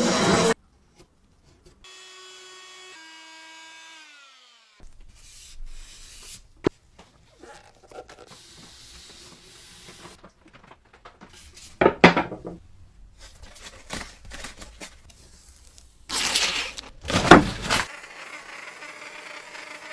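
Hand-tool restoration work: rubbing and scraping with a few sharp clicks, and louder bursts of noise about twelve and sixteen seconds in. About two seconds in there is a squeal lasting two seconds or so, stepping down in pitch.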